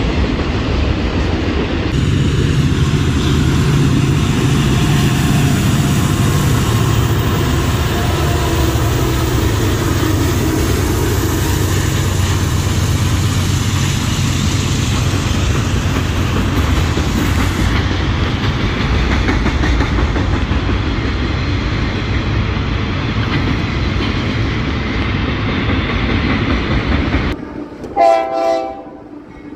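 A train rolling past close by: a loud, steady rumble of wheels on rails. Near the end the rumble drops away and a train horn sounds a short blast.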